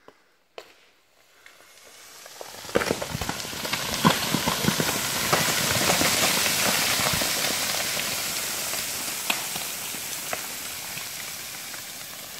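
Rockfall down a steep shale cliff: a rushing hiss of falling stones and gravel, dotted with the sharp knocks of rocks striking. It builds over about two seconds, is loudest in the middle, and slowly fades.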